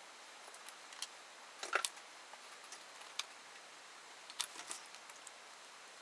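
Scattered light clicks and metallic clinks of small tools and parts being handled, a few seconds apart.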